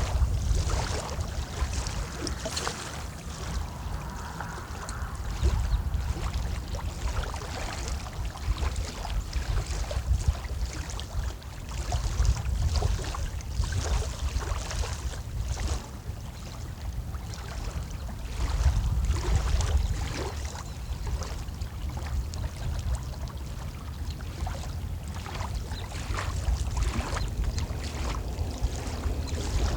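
Wind buffeting the microphone, a low rumble that swells in gusts about a third and two-thirds of the way through, over the hiss and irregular splashy lapping of water.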